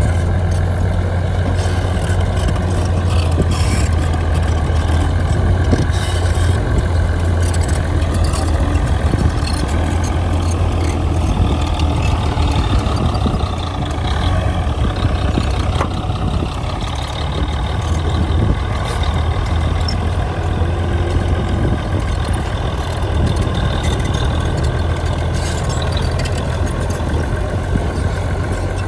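Heavy diesel engine of earthmoving machinery running continuously with a strong low hum, its higher tones rising and falling slightly as the load changes.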